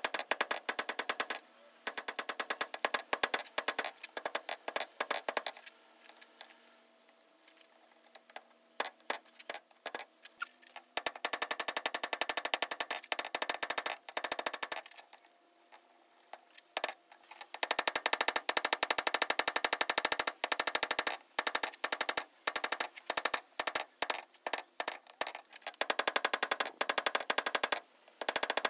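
Hand hammer striking red-hot square steel bar stock on an anvil in rapid runs of ringing blows, drawing the bar out to a taper. The hammering stops for a few seconds twice.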